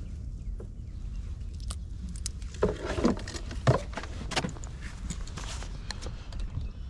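Scattered knocks, clicks and clatter of fishing gear being handled in a small boat (PVC jug lines, hooks and tackle), over a low steady rumble.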